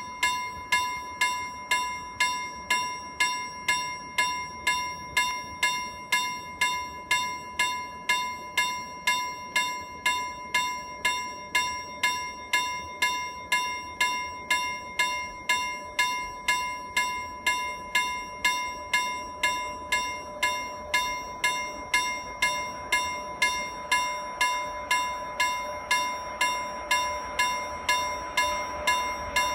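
Railway level crossing warning bell ringing steadily, a little under two strikes a second, each strike ringing out. Over the last several seconds the rumble of an approaching freight train rises beneath it.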